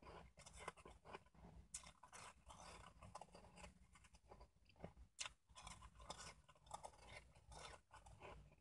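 Quiet chewing of a mouthful of shaved ice close to the microphone: a steady run of short, crisp crunches.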